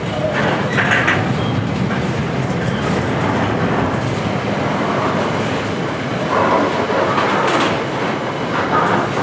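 Container flat wagons of a freight train rolling past on the track: a steady, loud rumble of wheels on rail, with louder, higher-pitched surges about a second in, around six to seven seconds in, and near the end.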